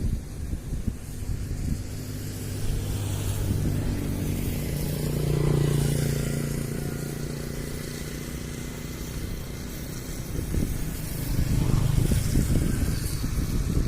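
Diesel locomotive engine humming steadily as the train runs, growing louder around the middle and again near the end.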